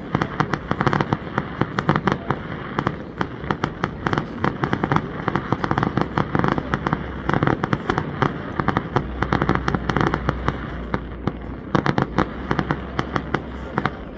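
Fireworks crackling and popping in a rapid, continuous barrage of many sharp reports a second.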